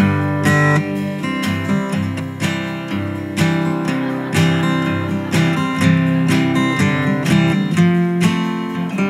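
Acoustic guitar strummed steadily through an instrumental break in a folk song, with held notes ringing under the strokes and no singing.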